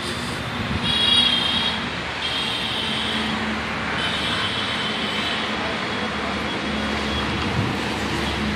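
Steady hum of road traffic, with brief high-pitched sounds about a second in and again around two and four seconds in, the first of them the loudest.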